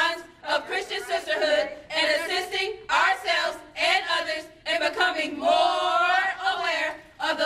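A small group of women singing together in unison, in phrases of held, wavering notes separated by short breaths.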